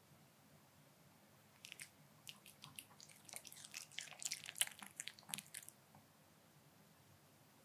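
A Pomeranian chewing and smacking its mouth: a quick, irregular run of crisp clicks that starts about a second and a half in and stops around six seconds.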